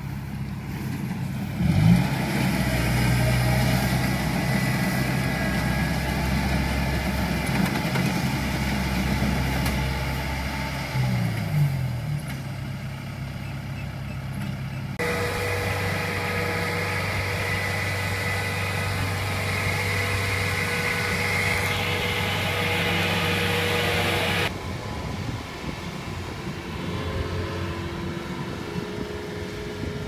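Engine of a small tracked rice combine harvester running steadily, its pitch briefly rising and falling about two seconds in and again around eleven seconds. The sound changes abruptly twice, at about fifteen and twenty-five seconds, and between those points a steady high whine runs over the engine.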